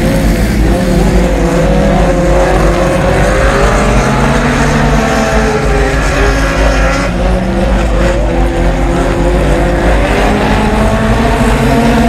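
Honda Civic EG hatchback race car's engine running hard during a dirt-track race, its pitch rising and falling as it accelerates and lifts through the turns.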